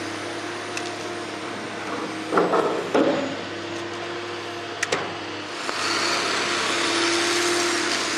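Sennebogen 840 scrap material handler running steadily as it swings its grapple, a machine drone with a held tone. There are two short, louder bursts of metal noise about two and three seconds in and a few sharp clicks near halfway, and the machine grows louder for the last couple of seconds.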